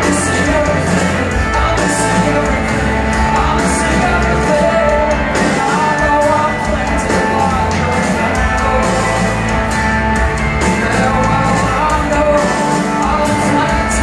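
Live rock band playing on electric guitars, drums and keyboards, with singing, heard from the audience in a concert hall.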